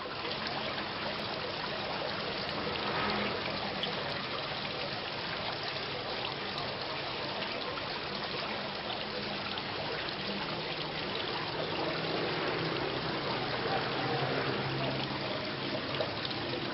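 Steady rain falling in a continuous, even hiss.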